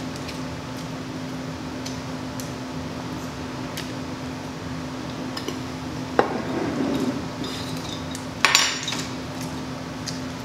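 Tableware being handled at a meal: a sharp knock about six seconds in, then a louder clatter about two and a half seconds later, over a steady low hum.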